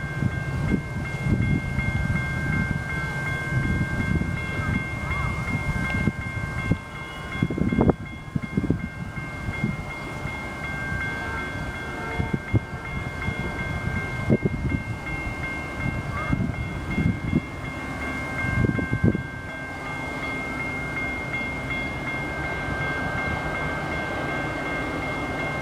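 Railroad grade-crossing warning bells ringing continuously, the crossing activated for an approaching Metra commuter train. Gusts of wind on the microphone rumble under the bells for the first twenty seconds or so.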